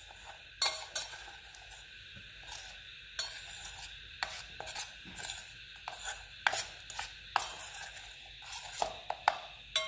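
Steel spoon stirring and scraping dry flour and salt in a stainless steel bowl, with irregular clinks and scrapes of the spoon against the bowl, and a sharper clink at the very end.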